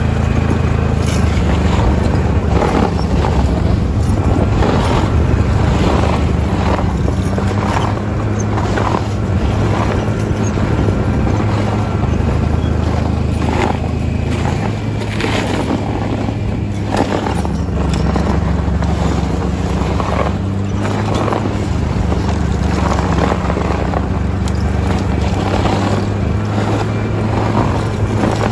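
Snowmobile engine running steadily under way, its pitch stepping up and down a little a few times, with frequent short knocks and rattles as the machine bounces over the trail.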